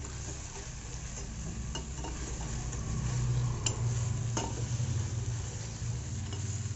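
A steel ladle stirring sliced okra around a metal kadai in hot oil, with a light sizzle and a few sharp clicks of the ladle against the pan, over a low steady hum.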